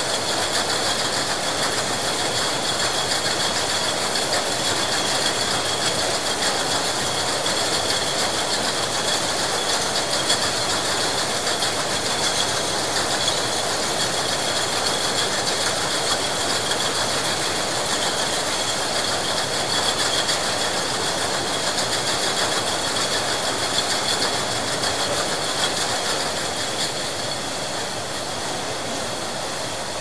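Milk bottle plant's bottle-filling line running: a steady, dense machinery noise with a constant high whine, easing slightly in level near the end.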